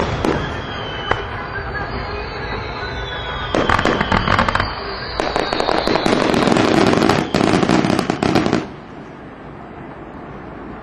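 Fireworks going off: a sharp bang at the start and another crack about a second in, with whistles falling in pitch, then dense rapid crackling in two stretches from about three and a half seconds. The crackling cuts off suddenly about two seconds before the end, leaving a quieter steady hiss.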